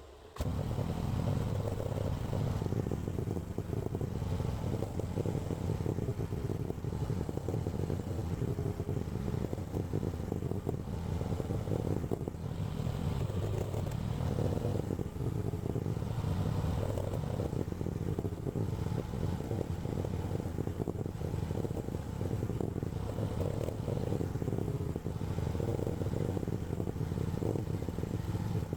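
AGT LH12R mini excavator's small engine running steadily at working speed.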